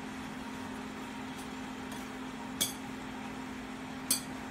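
Steady hum of a coal forge's air blower while a blade heats in the fire, with two sharp light metallic clinks about a second and a half apart in the second half.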